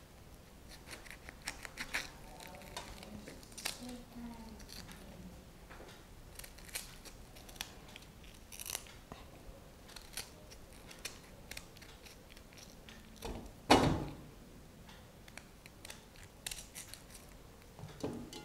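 Knife cutting raw jackfruit into chunks on a steel plate: irregular soft slicing sounds and light clicks of the blade against the plate, with one louder knock about three-quarters of the way through.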